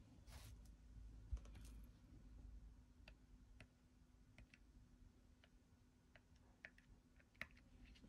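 Near silence with faint, scattered small clicks and taps, about a dozen at uneven intervals, over a faint steady low hum; one soft thump a little over a second in.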